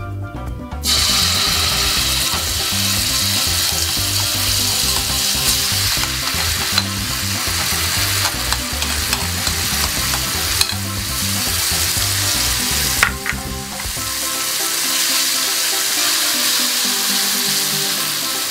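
Ground red chili paste frying in hot oil in a non-stick wok: a loud, steady sizzle that starts suddenly about a second in. A spatula scrapes and knocks against the pan a few times as it is stirred.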